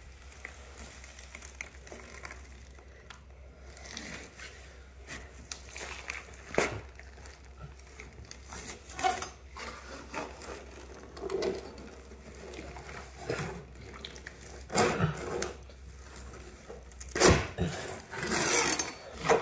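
Saw-backed machete blade scraping and sawing in the gap under the edge of vinyl plank flooring, cutting through the silicone bead that holds the planks to the subfloor. Irregular strokes, with louder, quicker scraping near the end.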